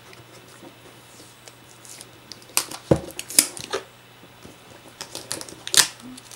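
Clear adhesive seal tabs being peeled off a cardboard product box, heard as soft rustling and a handful of scattered sharp clicks, the sharpest a few seconds in and again near the end.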